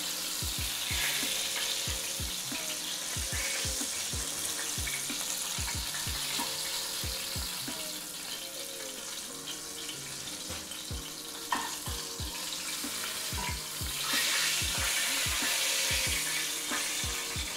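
Cornmeal-breaded crappie fillets frying in hot oil, giving a steady, even sizzle. Background music with a steady beat plays underneath, and there is one brief tap about two-thirds of the way through.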